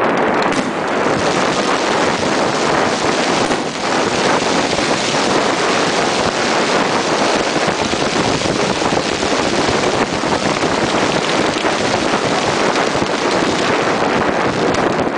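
Steady rushing noise of wind on the microphone, with a few faint fireworks pops through it.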